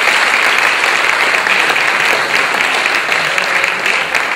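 Audience and panel applauding, dense steady clapping that begins to thin out near the end.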